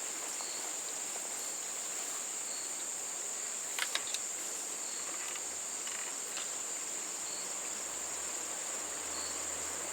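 Steady high-pitched chorus of insects, one unbroken shrill tone, with a brief cluster of faint clicks about four seconds in.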